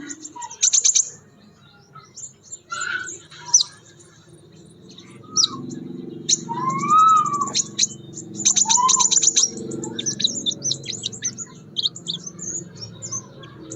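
Crimson sunbird singing: a run of sharp, very high chirps and rapid trills, with a few lower slurred whistles in the middle, over a faint low rumble.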